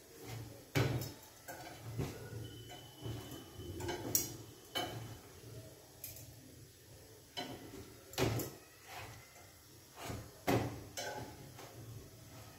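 Metal kitchen tongs clicking and knocking against each other and the gas burner's iron grate while a chapati is turned over the open flame: a scatter of sharp clicks, the loudest about a second in and twice near the end.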